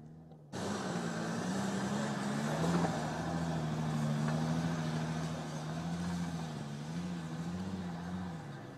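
Mercedes-Benz G-Class SUV engine running at low, fairly steady revs as the vehicle crawls past on a rough track. The sound starts abruptly about half a second in and eases off near the end.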